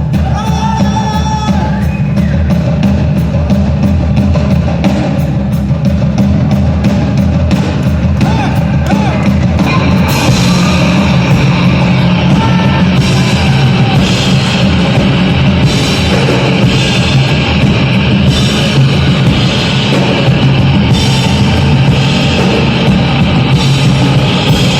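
A live rock band plays an instrumental passage, drums keeping a steady beat under guitar. About ten seconds in the band comes in fuller and brighter.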